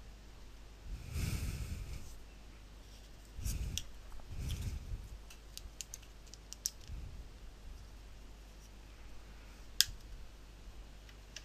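Faint scattered clicks, one sharper click near the end, with a few low muffled thuds about a second in and again around four to five seconds in.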